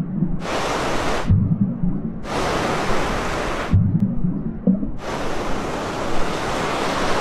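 Rain and choppy sea water heard from a camera bobbing at the surface. A bright hiss of rain and waves cuts in three times, about half a second in, around two seconds in and at five seconds, and between those stretches only a muffled low rumble remains as the camera dips under the water.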